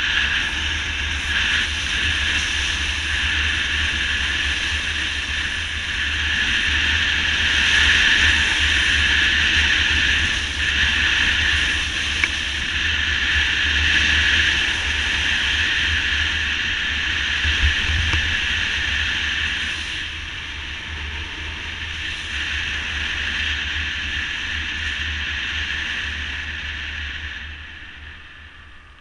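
Wind buffeting the camera microphone on a moving motorcycle, a steady low rumble under a broad rushing hiss, with the bike's road and engine noise mixed in. It quietens over the last couple of seconds as the motorcycle slows.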